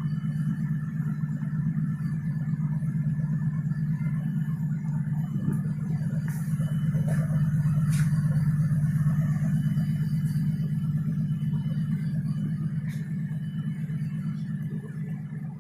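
Steady low drone of a passenger ship's diesel engines, heard from the open deck while the ship is under way.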